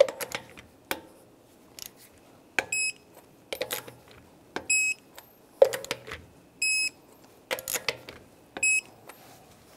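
Torque wrench beeping as each lug nut reaches 130 foot-pounds: four short double beeps about two seconds apart. Between the beeps come sharp clicks and knocks of the wrench and socket on the nuts.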